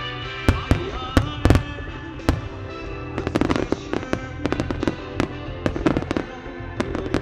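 Starmine fireworks display: a few loud single shell bursts in the first two seconds, then from about three seconds in a rapid run of many smaller bursts, over music playing along with the show.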